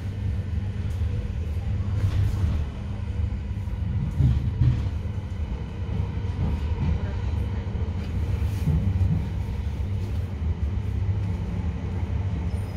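Steady low rumble of a passenger train running along the track, heard from inside the carriage.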